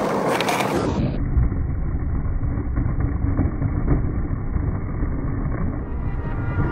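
Skateboard wheels rolling on asphalt, a steady low rumble with a few sharp clacks, as the board rides up onto and along a concrete curb edge.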